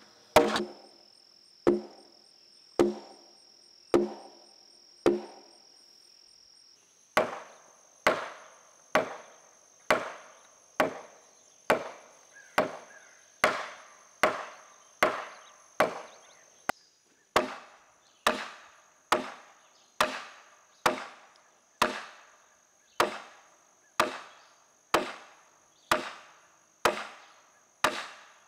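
Repeated blows of a striking tool driving oak wedges into timber sill joints. The blows come about once a second at first, then after a short pause at about two a second. Insects keep up a steady high buzz underneath.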